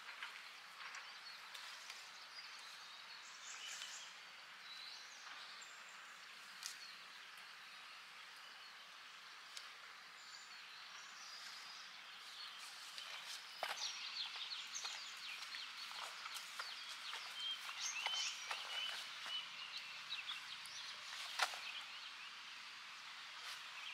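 Outdoor ambience with scattered rustling and clicks and short high chirps, getting busier and louder a little past halfway.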